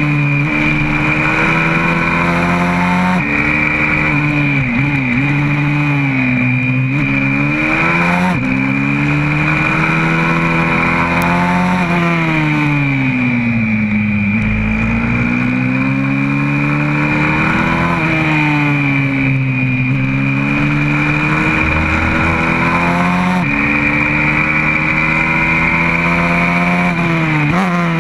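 YCF 125cc four-stroke pit bike engine heard from onboard at racing speed. The engine note rises under acceleration and falls when slowing for corners, with several sudden jumps in pitch at gear changes.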